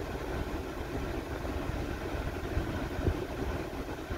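GM GMT-800 pickup's V8 idling steadily, heard inside the cab with the air-conditioning blower running.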